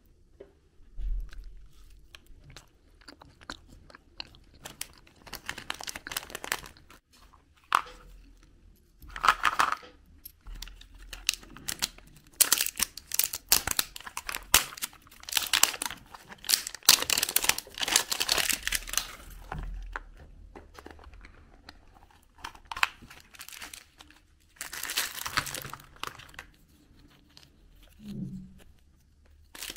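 Hands crinkling and tearing plastic wrappers and handling small hard-plastic toy parts, in irregular rustling bursts with small clicks, loudest through the middle.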